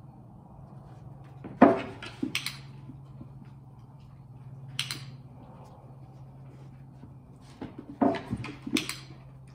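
A few brief spoken words, a few seconds apart, over a steady low hum.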